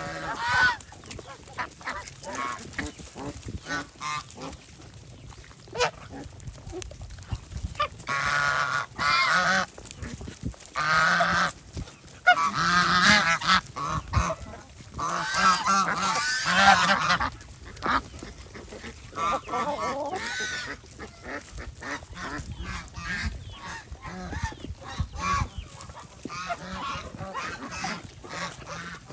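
A flock of domestic geese honking, many birds calling over one another. The calling swells into loud, dense honking bouts in the middle, with softer scattered calls before and after.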